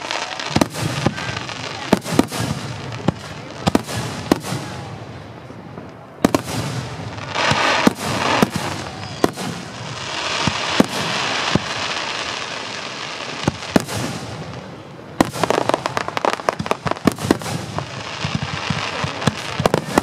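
Aerial fireworks shells bursting overhead: sharp bangs at irregular intervals with stretches of hiss between them, the bangs coming thick and fast over the last five seconds.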